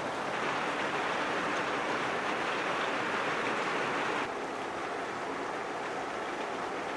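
Steady rain falling, an even hiss of drops on surfaces that dips slightly in level about four seconds in.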